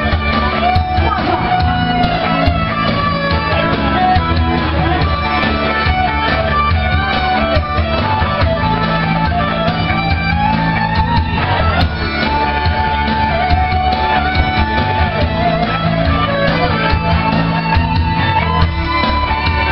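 Live band playing a rock cover song, with electric guitar.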